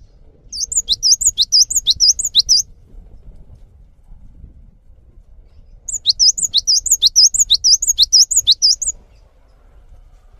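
Cinereous tit (gelatik batu) singing: two loud bursts of rapid, high, repeated sweeping notes. The first starts about half a second in and lasts two seconds; the second starts about six seconds in and lasts three.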